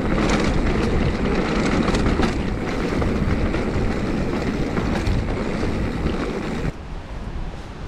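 Wind rushing over the microphone and mountain bike tyres rumbling over a rough forest trail at speed, with frequent rattles and knocks from the bike. The noise drops suddenly near the end.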